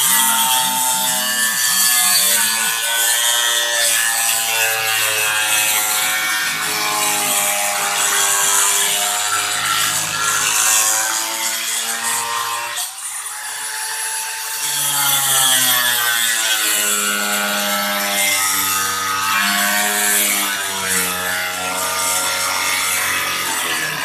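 Electric grinder running under load: a loud motor whine that sags in pitch and recovers several times as the disc bites, over a steady high hiss of grinding.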